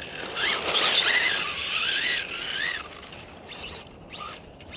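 Radio-controlled rally car's motor whining, rising and falling in pitch again and again, over a loud rushing noise. After about three seconds it drops away to a quieter background with a few sharp clicks.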